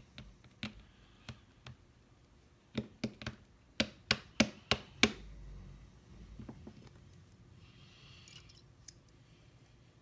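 Small metal lock-picking tools clicking against a brass lock cylinder as they are handled. A few light clicks come first, then a quick run of about nine sharp, loud clicks about three to five seconds in.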